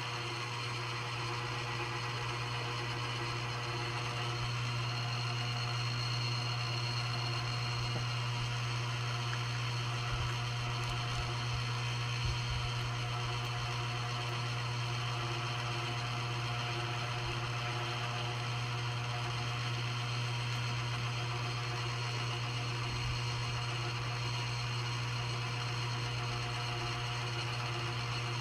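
An animal breathing fast at rest, a faint regular pulse of breaths a little over one a second, under a steady low hum that is the loudest sound.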